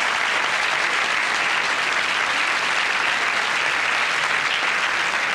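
Studio audience applauding, a steady even clapping that holds throughout.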